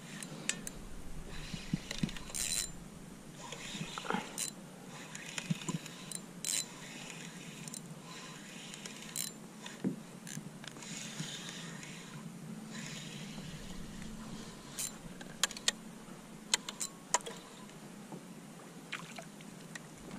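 Small splashes and lapping of water against a kayak, with scattered sharp clicks and knocks of fishing tackle being handled, most of them in the second half.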